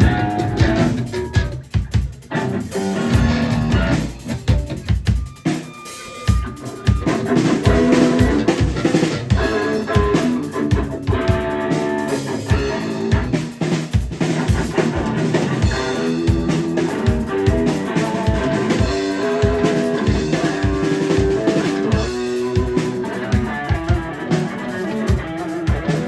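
Rock band playing: a drum kit with guitars and bass. The first few seconds are broken up with stops and accents, then the band settles into a steady driving beat with a regular kick drum.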